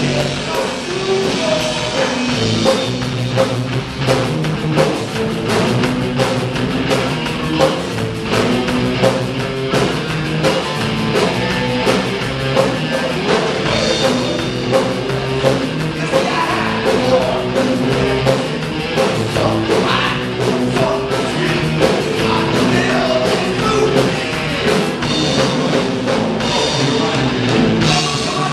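Live rock band playing: electric guitar, bass guitar and drum kit together, the drums keeping a steady beat.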